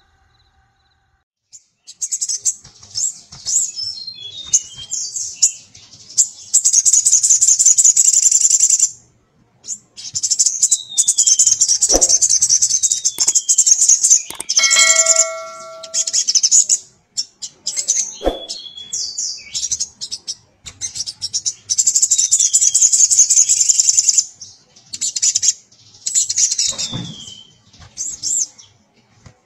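Male sogon (sogok ontong), a sunbird, singing hard in long runs of rapid, high-pitched trilled notes with short breaks; the song starts about two seconds in. It is a male's song calling to a female.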